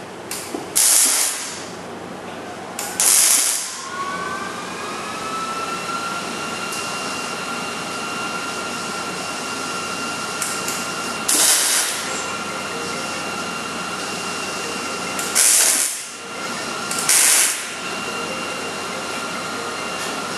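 Wire-feed (MIG) welder laying short stitch welds, 'caterpillars', on steel cap-off plates at the frame rail ends: five short bursts of welding arc, each under about a second, with pauses between. A steady high whine rises in pitch about four seconds in and then holds.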